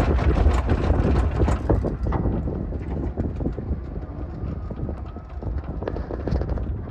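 Wind buffeting the microphone as a deep rumble, louder for the first two seconds, with many small irregular clicks and knocks over it.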